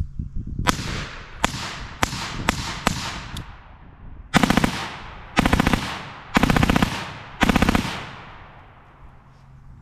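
Select-fire AR rifle in 5.56 firing through a SilencerCo Velos low-back-pressure suppressor: several separate shots about half a second apart, then four short full-auto bursts of roughly half a second each.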